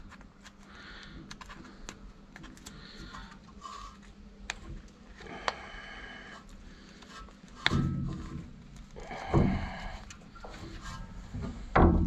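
Metal brake parts and hand tools being handled while a rear disc brake caliper is taken apart to reach the pads: scattered light clicks and clinks, a brief metallic ring, then three heavier thunks in the second half.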